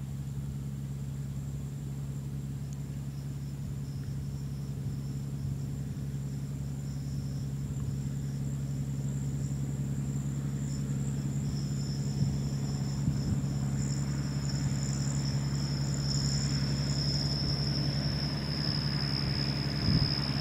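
Farm tractor engine running at steady working revs, with a high-pitched whine over it, growing louder as the machine draws nearer.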